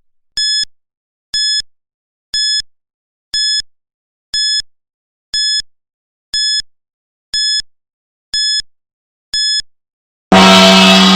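Countdown timer's final ten seconds: ten short, high electronic beeps, one a second, then a loud gong at zero that rings on and slowly fades.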